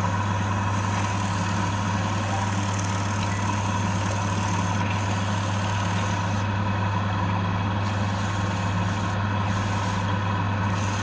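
Electric motor of a wood lathe running steadily, with a constant low hum.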